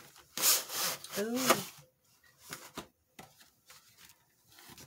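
Packaging of an oil pastel set being handled and opened: two loud rubbing, scraping strokes in the first second and a half, then a few light clicks and taps.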